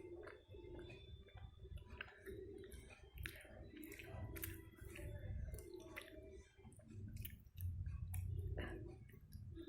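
Close-miked eating: chewing with many wet mouth clicks and lip smacks scattered through.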